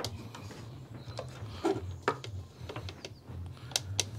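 Hand tools and metal parts clicking and knocking while the timing-belt guide pulleys are fitted on a Vauxhall Astra 1.8 engine: a handful of sharp, irregular clicks over a steady low hum.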